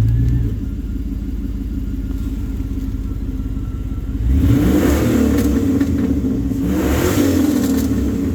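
Car engine running through an exhaust fitted with an electric cutout. About half a second in the exhaust note drops to a quieter idle as the cutout is switched shut. About four seconds in it turns louder again, with two short revs.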